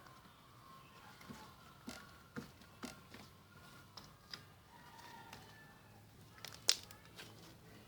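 Slime being handled: a scatter of small clicks and pops from the slime, with one sharper pop near the end.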